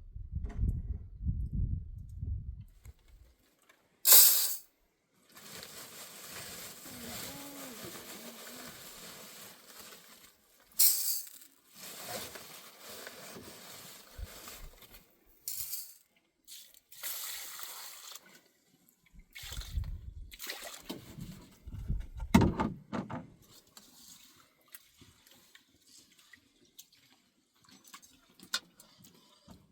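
Water being poured and splashed, with a few sharp knocks and thuds in between.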